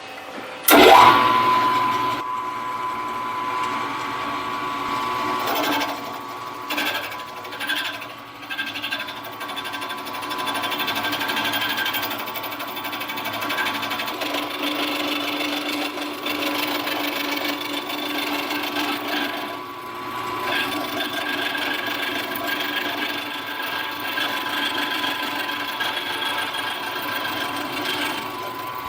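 Milling machine starting up about a second in and running at about 900 RPM while the cutter is plunged straight into the part: a steady machine whine with a constant high tone. The cutting noise dips and returns a few times as the feed changes.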